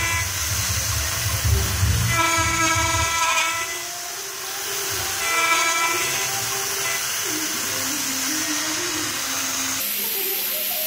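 CNC mill spindle cutting an aluminium plate with an end mill, over a steady hiss from the air or coolant nozzle. A pitched cutting whine comes and goes in bursts of about a second, three times, and the sound changes abruptly near the end.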